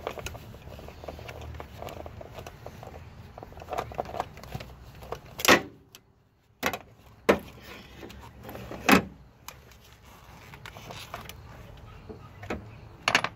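A few sharp knocks and clatters from handling over a low steady hum, the loudest coming in a cluster about midway and one more near the end.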